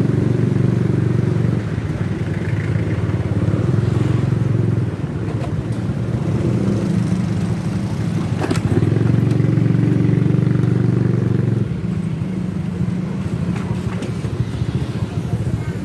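Motorcycle engine running in slow street traffic, a steady low rumble that swells and eases every few seconds with the throttle. A brief click sounds about eight and a half seconds in.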